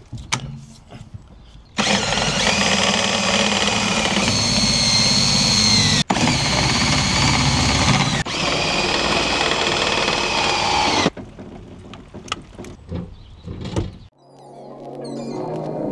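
Ryobi cordless drill with a socket bit winding a caravan corner steady, its motor running loud and steady under load with a whine that wavers in pitch. It runs from about two seconds in to about eleven seconds, with two brief breaks. Quieter clicks and knocks follow.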